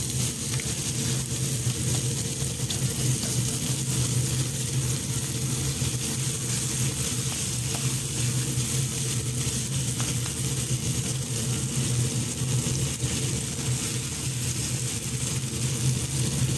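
Ground beef, onion and tomato sizzling steadily in a wok, with a slotted spatula stirring and scraping now and then, over a steady low hum.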